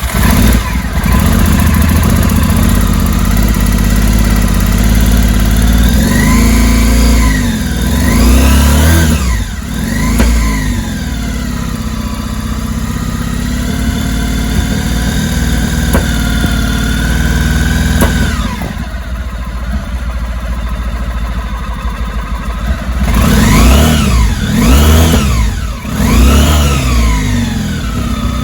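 Petrol car engine starting and running, revved in several quick rising-and-falling blips about a quarter of the way in, settling to a steady run, then blipped a few more times near the end.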